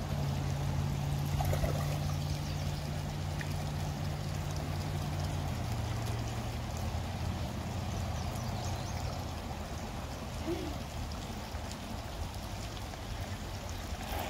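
A low steady hum drops in pitch about five and a half seconds in and fades out around nine seconds in. Under it is a faint trickle of creek water.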